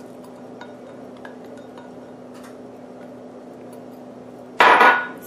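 Light taps and scraping of a silicone spatula on glassware as chopped strawberries are scraped into a glass bowl of flour, then one loud, ringing glass clink near the end.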